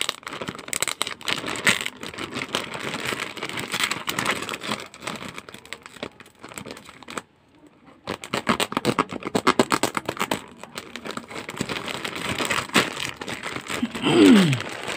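Clear plastic poly bag crinkling and crackling as it is handled and cut open by hand, with a short break about seven seconds in. Near the end, the loudest sound is a brief tone that slides down in pitch.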